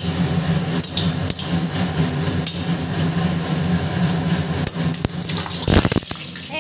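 Kitchen chimney (range-hood exhaust fan) running with a steady low hum, over puris frying in hot oil in an iron kadai, with a few light clicks as more puris go into the pan. A brief loud noise comes near the end.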